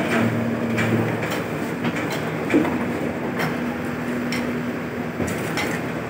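JCB 3DX backhoe loader's diesel engine running steadily while it works its digging arm, with a constant hum and a steady whine. Sharp knocks and scrapes of crowbars striking the soil come at irregular intervals throughout.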